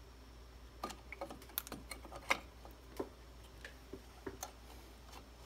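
Irregular light metallic clicks and taps from a 1999 Jeep Wrangler TJ's rear drum-brake hardware as the brake shoes, springs and bar are fitted onto the backing plate by hand.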